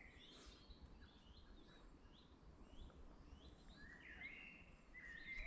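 Faint songbirds singing in woodland: short high chirping notes repeated about once a second, with a longer warbled phrase near the end, over a faint low rumble.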